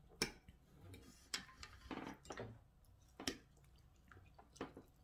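A metal fork clicking and scraping against a plate as sauce-covered fries are picked up, about four sharp clicks with a few short, softer wet food sounds between them.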